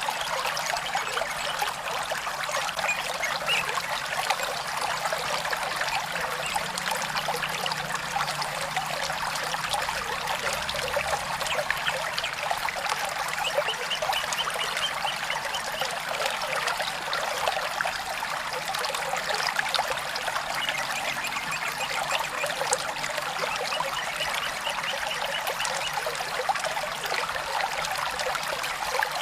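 Small stream of water trickling and babbling steadily.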